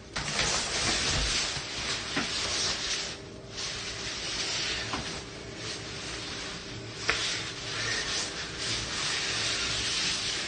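Rustling and swishing of a nylon puffer jacket as it is swung over the head and pulled into place, with a couple of small clicks.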